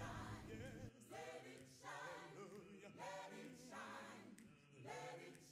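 Soft background music of choral singing, with wavering sung notes in phrases about a second long.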